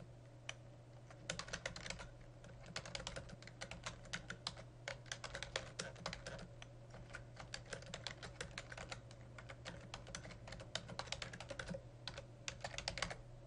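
Typing on a computer keyboard: runs of quick keystrokes broken by short pauses, over a steady low hum.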